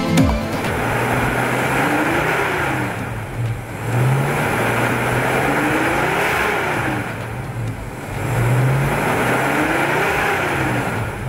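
A 1965 Ford Mustang's 289 cubic-inch small-block V8 being revved three times, about four seconds apart. Each time the engine speed rises and then falls back, and it drops to a lower, quieter running speed between revs.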